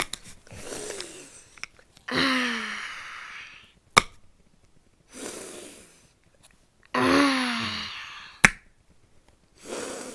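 A child's voice making a series of breathy vocal sounds, sighs or groans rather than words, about five of them, each sliding down in pitch. Sharp clicks from handling come between them.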